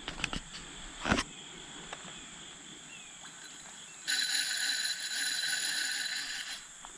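A steady high insect drone, with a few short knocks in the first second or so. A loud hissing buzz starts abruptly a little past the middle and stops just as abruptly about two and a half seconds later.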